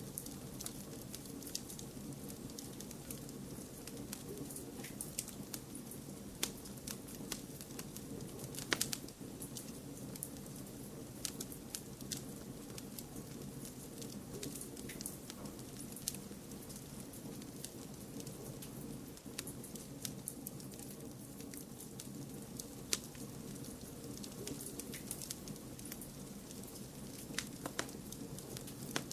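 Wood fire crackling, with frequent sharp pops scattered over a steady low rush of background noise; one louder pop comes about nine seconds in.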